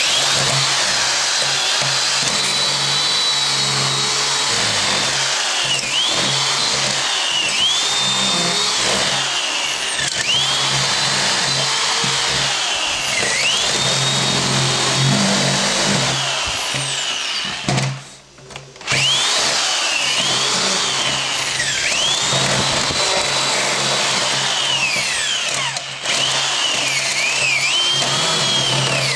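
Small cordless drill boring into the plastic casing of a cassette recorder, running almost without a break; the motor's whine drops in pitch each time the bit bites under load and climbs back as it frees, with one short stop about 18 seconds in.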